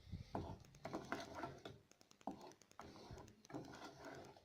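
Faint, irregular light clicks and taps, a few each second.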